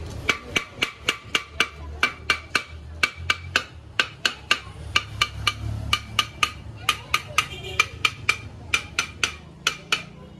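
Wooden mallet tapping steadily around the rim of an old aluminium pressure cooker, about three to four blows a second, each with a short metallic ring. The cooker's mouth is being beaten back into shape so the lid seals and steam no longer escapes at the sides.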